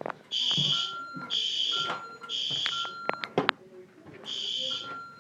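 Fire alarm sounding the temporal-three evacuation signal: three high half-second beeps a second apart, a pause, then the next round starting. A few sharp clicks sound just after the third beep.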